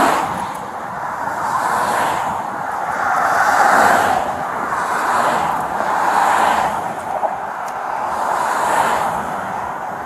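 Interstate traffic going past close by: tyre and engine noise that swells and fades as one vehicle after another passes, every second or two.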